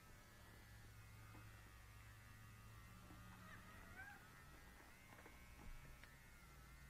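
Small battery bullet vibrator buzzing with a faint, steady low hum while held against a cat's face, with a few faint squeaky sounds about halfway through.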